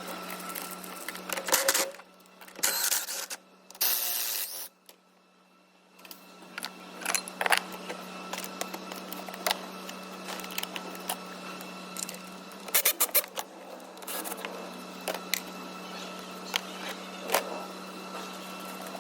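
Hand tools and plastic parts clicking and rattling as a fuse board and cable are unfastened from a car's blower motor housing, over a steady low hum. Louder clusters of rattling come in the first few seconds, then a brief drop to near silence.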